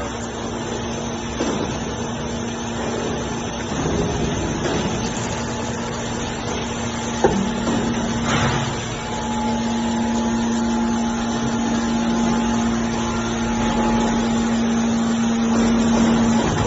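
Hydraulic scrap metal baler running: steady machine noise with a low steady hum that grows stronger about halfway through and holds. A single sharp knock comes about seven seconds in.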